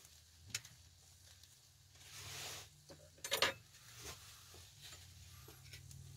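Quiet kitchen handling: a few light clicks and one brief, sharper clatter of a plate and fork about three and a half seconds in, with a short hiss a little after two seconds, over a low steady hum.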